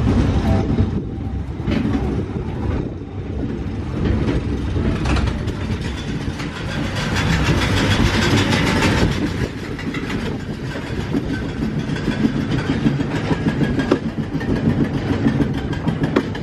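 Small kiddie roller coaster train running along its steel track, its wheels rumbling and clattering over the rails.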